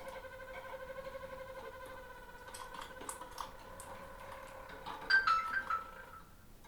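Harz roller canary singing a low rolling song: a finely pulsed tone held for several seconds. About five seconds in comes a louder run of short, stepped higher notes, and the song fades out near the end.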